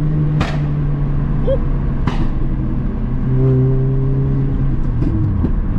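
Supercharged four-cylinder engine of a Mini Cooper S R53 with a decat exhaust, pulling on the road, heard from the cabin with the windows down. There are two sharp pops from the exhaust about a second and a half apart. The engine note rises again about three seconds in and falls away near the end.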